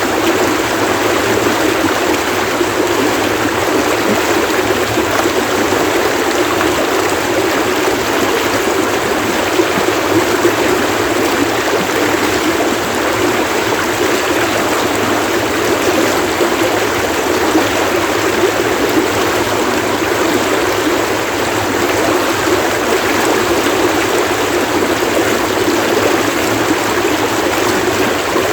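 Running stream water splashing, a steady, unbroken rush.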